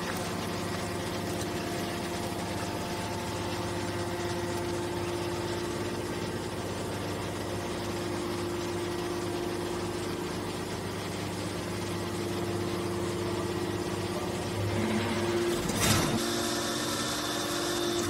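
Hydraulic metal scrap baler running: a steady hum from its electric motor and hydraulic pump while it ejects a compressed bale. About sixteen seconds in there is a brief louder burst of noise.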